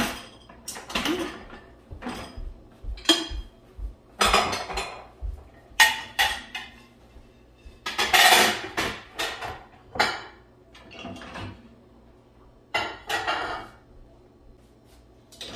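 Dishes and utensils clattering and clinking as a dishwasher is unloaded: plates and bowls knocking against each other and the rack in a string of separate clatters, thinning out near the end.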